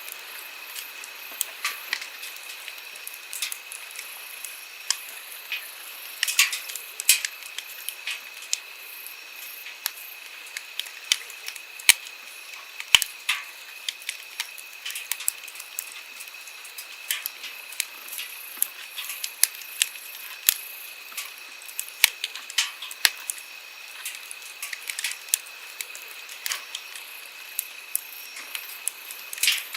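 Wood campfire crackling with irregular sharp pops, several a second, over the steady rush of a flowing stream.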